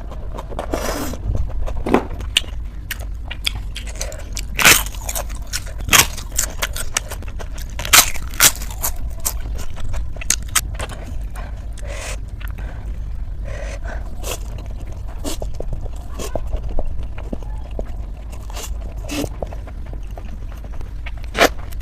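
Close-up eating sounds of a person chewing noodles, with many sharp clicks and scrapes scattered throughout over a steady low hum.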